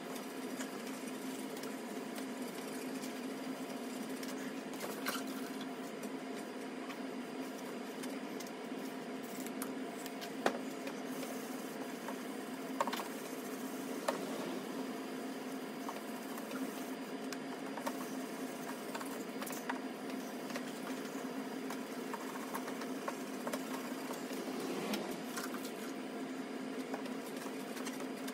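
Hand rubbing and wiping over a plastic light-bar dome, a continuous scratchy rubbing over a steady hum, with a few sharp clicks about ten to fourteen seconds in.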